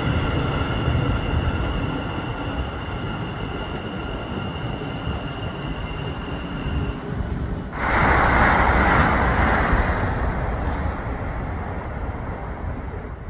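NS Sprinter electric train pulling away from the station, its electric drive whining in several steady high tones over a low running rumble; the whine fades out about seven seconds in. About a second later a sudden loud rushing noise lasts a couple of seconds.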